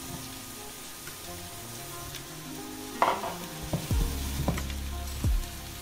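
Sliced button mushrooms sizzling as they start to fry in a hot non-stick frying pan. A little past halfway the pan is gripped by its handle and moved on the glass induction hob, giving a few knocks and a low rumble.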